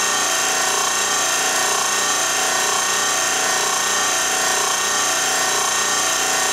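A machine running steadily: a continuous whirring hum with several unchanging tones.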